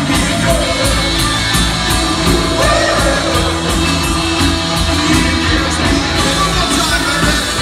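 A punk rock band playing live and loud, heard from the audience: electric guitar, bass and keyboards over a steady drum beat with cymbals, with singing about a third of the way in.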